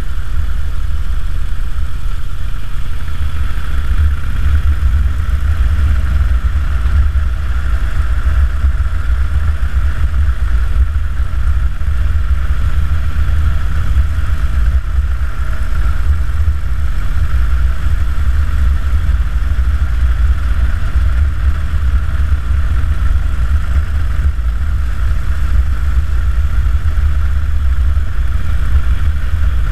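Harley-Davidson Dyna Super Glide's air-cooled Twin Cam 96 V-twin running steadily as the motorcycle cruises at a constant speed, a deep, even rumble with no revving or gear changes.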